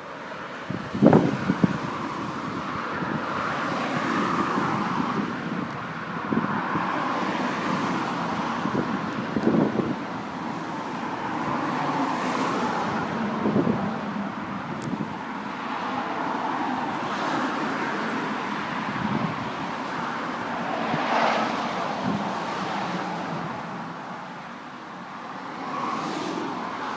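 Road traffic going past: a steady wash of tyre and engine noise that swells and fades as cars pass. A few short knocks, the sharpest about a second in.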